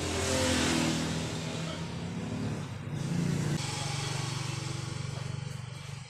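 A motor vehicle's engine running nearby, its low pitch shifting. It is loudest in the first second and changes pitch about three and a half seconds in.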